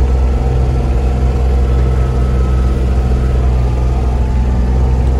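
Vehicle engine running at a steady speed, a loud, even low hum that holds one pitch throughout.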